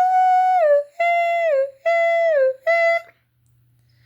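A single voice sings wordless notes: a long held note, then three short notes that each dip in pitch at the end, stopping about three seconds in.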